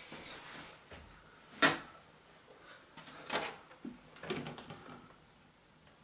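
Hard plastic and metal computer parts being handled: a sharp click about a second and a half in, then a few lighter clicks and knocks over the next few seconds.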